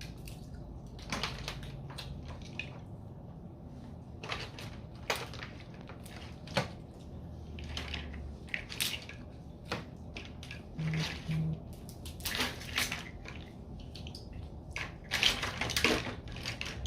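Wet eating sounds of a snow crab and fish meal: irregular short bursts of slurping, sucking and crunching as shells are broken and meat is eaten, coming thicker near the end.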